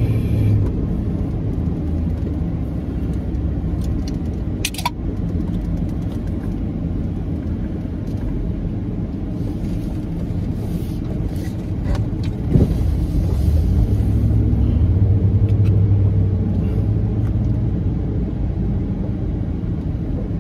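Truck engine and road noise heard from inside the cab while driving: a steady low hum that grows louder for a few seconds past the middle, with a couple of brief clicks.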